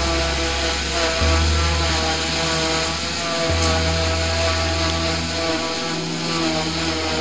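Rock music with a distorted guitar over a bass line that steps to a new note every couple of seconds.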